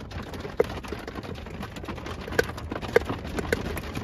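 Rain pattering and drumming on the metal roof of a 2004 Chevy Astro van during a thunderstorm: a steady hiss full of irregular ticks, with louder single knocks scattered through, the loudest about three seconds in.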